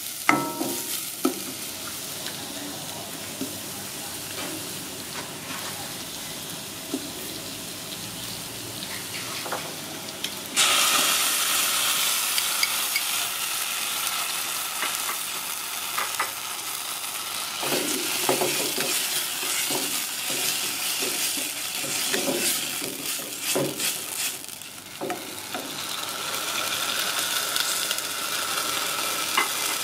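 Chopped onion and garlic sizzling in a stainless steel saucepan while a wooden spatula stirs and scrapes them. The sizzle turns suddenly louder about ten seconds in, with scattered scrapes of the spatula against the pan.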